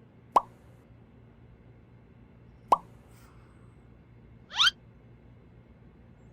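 Two short cartoon-style pop sound effects about two and a half seconds apart, then a quick upward-sliding effect near the end.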